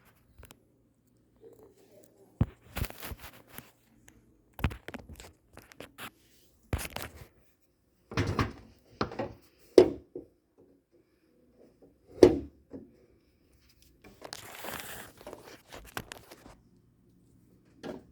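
Irregular knocks, clicks and clatter of plastic and metal dishwasher door parts being handled while screws are taken out, with a scraping sound lasting about two seconds near the end.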